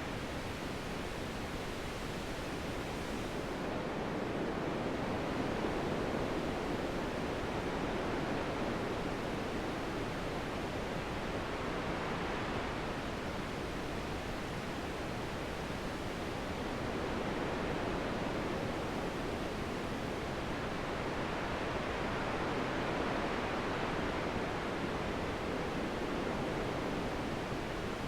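Wind blowing steadily, swelling and easing in slow gusts every several seconds.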